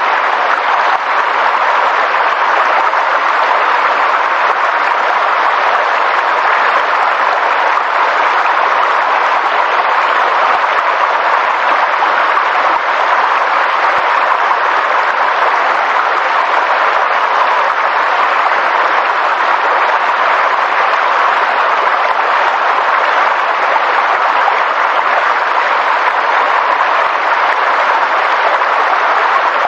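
A steady, even rushing noise with no separate events or tones in it.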